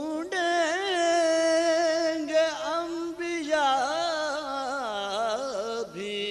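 A male voice singing an Urdu qaseeda (manqabat), drawing out a long syllable with wavering, ornamented pitch, with a short breath about three seconds in.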